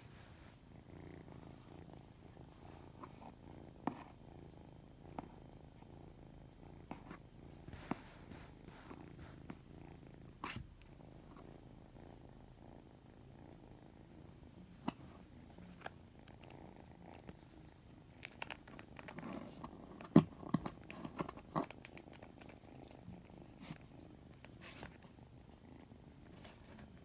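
Kitten purring steadily, with scattered small clicks and a louder run of clicks about twenty seconds in.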